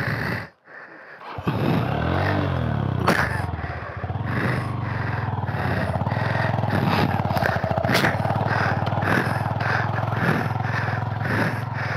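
Motorcycle engine running at low revs in first gear, pulling slowly up a steep, rough slope, with repeated knocks and scrapes. The sound drops out briefly just after the start, then the engine carries on steadily.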